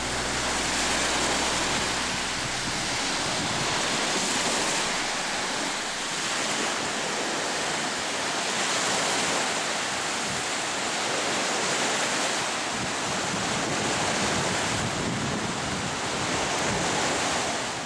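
Sea waves washing onto a sandy beach, a steady surf hiss that swells and eases every few seconds. The last of a background song fades out in the first few seconds.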